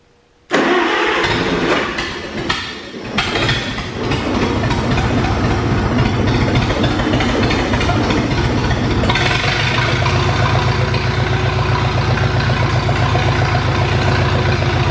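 International Utility 350 tractor's four-cylinder engine cranked on the starter, catching after a few seconds of uneven firing, then running steadily. About nine seconds in it runs louder and faster. This is the first start attempt after the intake manifold and fuel filter were reinstalled.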